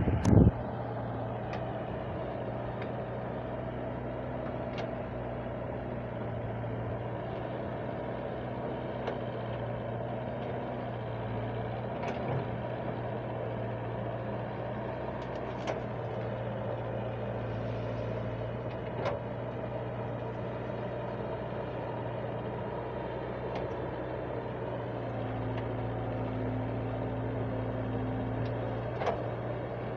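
Wheeled excavator's diesel engine running steadily while the machine digs, its note rising slightly near the end, with a few faint clicks. A short loud burst of noise at the very start.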